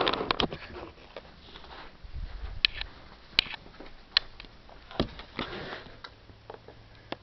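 Quiet handling noise: a few sharp, scattered clicks and soft rustles.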